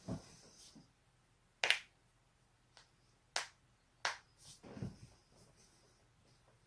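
A person's joints cracking: three sharp pops, with a fainter fourth among them, each a quick crack between soft rustles of movement.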